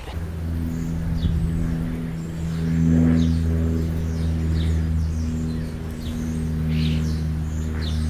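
A steady low engine hum that swells a little about three seconds in, with short high bird chirps scattered over it.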